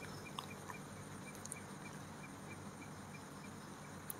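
Hushed room with a faint insect chirping steadily, a short high chirp about three times a second.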